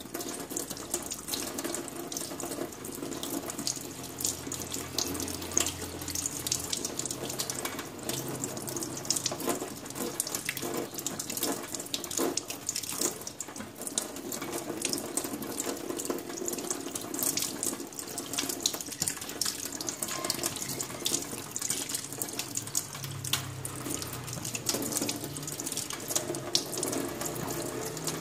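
Kitchen tap running onto hands rinsing a piece of raw meat, a steady rush of water with irregular splashing into a stainless-steel sink.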